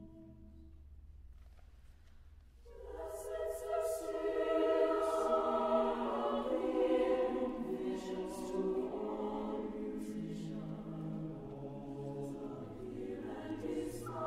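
Choir singing unaccompanied: a held chord fades out within the first second, then after a brief hush the voices come in together about three seconds in and sing on, with crisp s sounds in the words.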